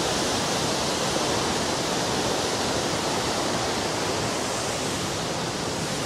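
Jōren Falls, a 25-metre waterfall, pouring steadily into its plunge pool: an even, unbroken rush of falling water.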